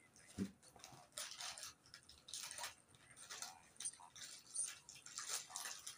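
Faint, irregular clicks and rustles, with a single low thump about half a second in.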